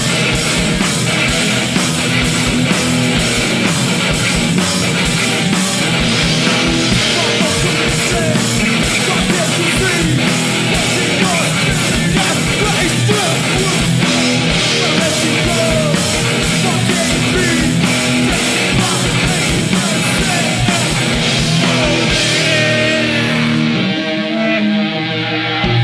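Live rock band playing loud and fast: electric guitar, bass and rapid drumming. Near the end the cymbals and drums drop away, leaving a held low note ringing.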